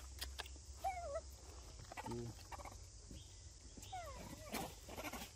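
Young macaques calling faintly: a short wavering squeak about a second in, a brief low grunt-like call at about two seconds, and a falling squeal near four seconds, with a few light clicks.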